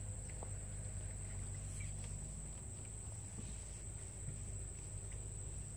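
Insects trilling: a steady, high-pitched, unbroken whine, with a low steady hum beneath it.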